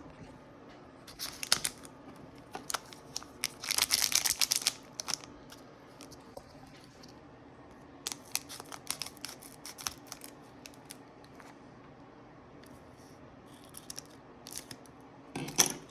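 Foil Pokémon card booster packs being torn open and crinkled, in a few short rips with quiet gaps; the longest tear comes about four seconds in. Light ticks and rustles of the cards being handled fall in between.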